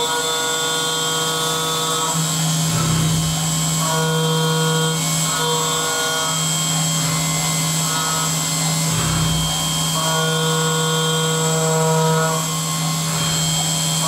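Syil X7 CNC milling machine cutting aluminium under flood coolant: the spindle hums steadily while a higher cutting tone comes and goes as the end mill moves in and out of the work. There are two brief low rumbles, about three and nine seconds in.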